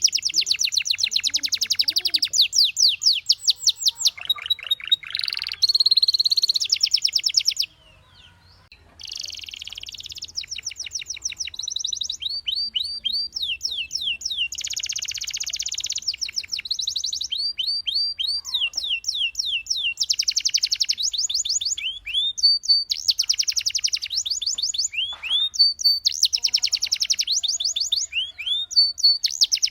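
Domestic canary singing: fast trills alternating with runs of quickly repeated sweeping whistled notes, with a short pause about eight seconds in.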